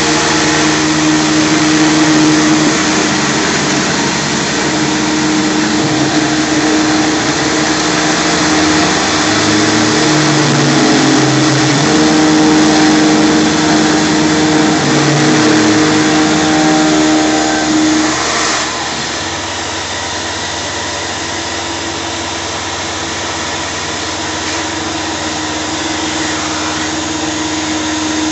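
Tormach PCNC 1100 CNC mill cutting a UHMW polyethylene disc, with a shop vacuum running and its nozzle held at the cut to pull away chips. A steady hum carries shifting, stepping motor tones as the machine moves through the pattern. The noise drops and turns duller about two-thirds of the way through.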